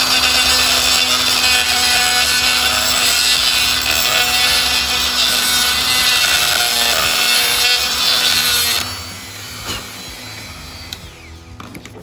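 Dremel rotary tool with a small grinding stone grinding a cast metal part, a steady high whir and grinding noise that stops about nine seconds in. It is taking a little metal out of the casting so the part will fit.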